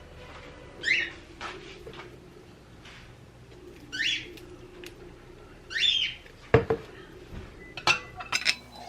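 Dishes and utensils handled while mayonnaise is measured out for ranch dressing: three short rising squeaks about two seconds apart, then a few sharp clinks near the end.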